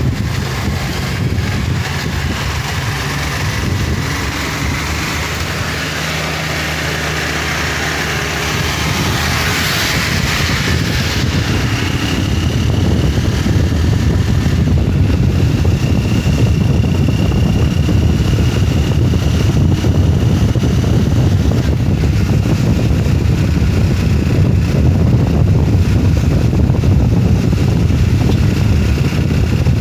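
Motorcycle engine running while riding, with a steady low rumble; it grows a little louder about twelve seconds in.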